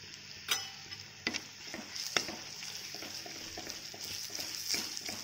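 Onion, tomato and chilli-powder tempering sizzling in hot oil in a pan while turmeric is stirred in, with a spoon clicking and scraping against the pan several times.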